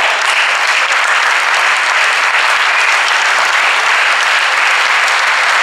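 Spectators applauding steadily, loud and even, as a table tennis rally ends.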